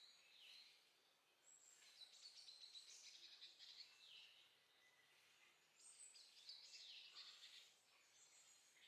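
Faint songbird song: quick twittering phrases with short falling whistled notes, repeating about every four seconds.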